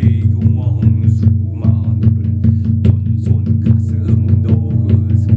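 Instrumental music: a low, steady bass tone pulsing evenly, with a regular beat.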